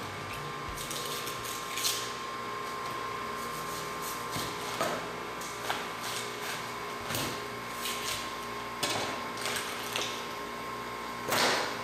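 Knife cutting and scraping through a whole albacore tuna on a cutting table: short strokes every second or two, the loudest near the end, over a steady hum and a running tap.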